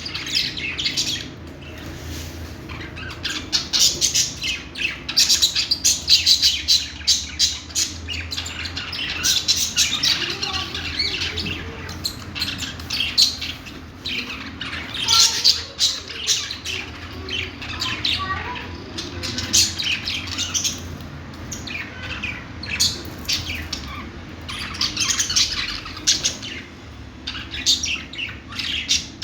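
A group of budgerigars chirping and chattering without pause, with rapid high chirps and squawks coming in louder flurries.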